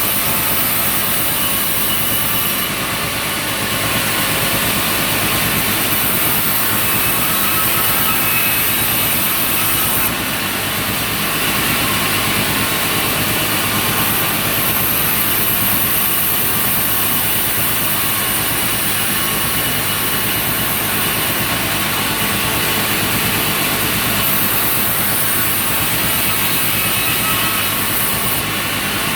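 Sawmill machinery running steadily, with a high hiss that drops out and returns several times.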